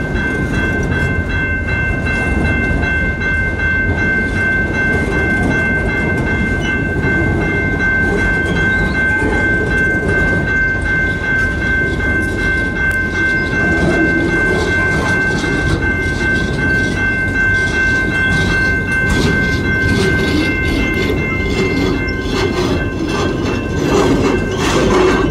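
A long freight train's autorack cars rolling past close by as the train slows: a steady rumble and clatter of wheels on rail. A steady high tone runs over it and stops about three seconds before the end. The wheel clacks grow sharper near the end.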